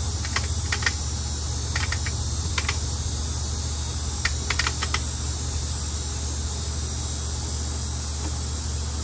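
Sharp metallic clicks of a hex key working the two-way service valve on a Pioneer mini split outdoor unit, opening it to let refrigerant into the line set. There are about seven clicks in the first five seconds, over a steady low hum.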